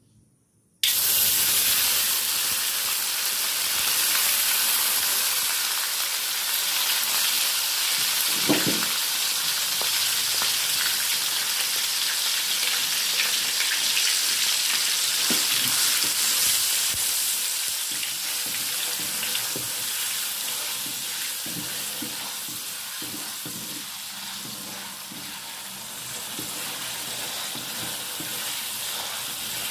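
Food hitting hot oil in a frying pan, starting with a sudden loud sizzle about a second in that slowly eases off. A few soft knocks of stirring come through the sizzle.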